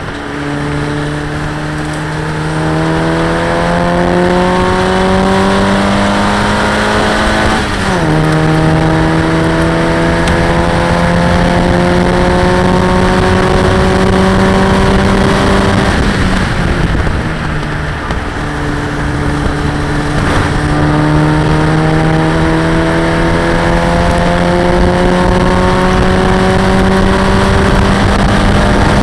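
Locost race car's engine heard from the cockpit under hard acceleration. It climbs in pitch, shifts up with a sharp drop about eight seconds in, and climbs again. It eases off briefly a little past halfway, then pulls up through the revs once more, with wind and road rush underneath.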